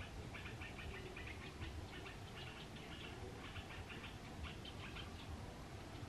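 Small birds chirping continually in quick clusters of short, high squeaky notes, over a low steady rumble.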